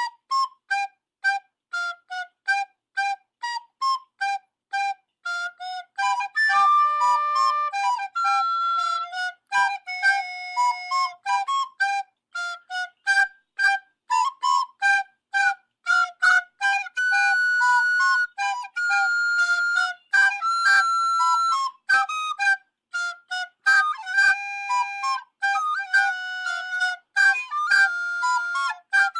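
A solo flute-like wind instrument plays a quick tune of short detached notes, mostly hopping between a low and a high note, with a few longer held notes in between.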